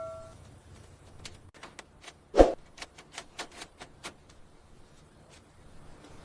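Scattered light clicks and taps, a few a second, with one heavier thud about two and a half seconds in. A ringing tone dies away at the very start.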